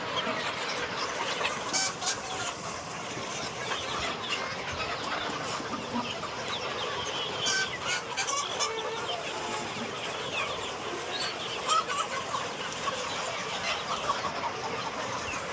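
A flock of Sonali desi chickens clucking together, with many calls overlapping throughout and a few short clicks among them.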